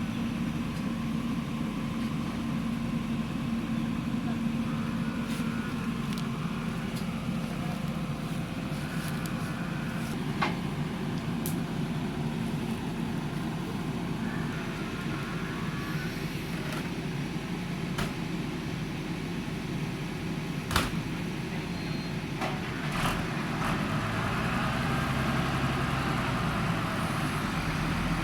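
Diesel engine of a JCB backhoe loader running steadily, with several sharp metallic knocks and clanks spread through. The engine grows louder and deeper for the last few seconds, as if working under load.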